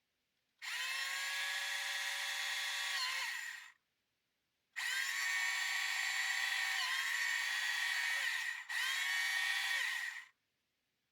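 Small electric motor of a Tamiya electric handy drill running in three bursts, with a steady whine and overtones. The first burst lasts about three seconds and the second about four. The third follows almost at once and is shorter. Each burst ends with the pitch falling as the motor spins down.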